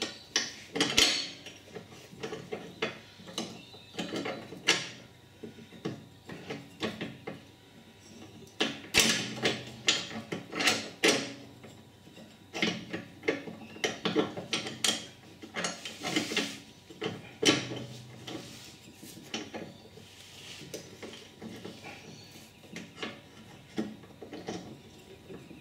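Irregular metallic clicks, knocks and clanks of a cutter V-belt being worked into a ride-on mower's deck pulley and belt guides by hand, with the pulley shifting and metal parts knocking together.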